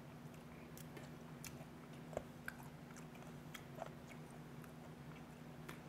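Faint chewing of a mouthful of seasoned raw skate salad (hongeo muchim) with vegetables: scattered soft mouth clicks over a steady low hum.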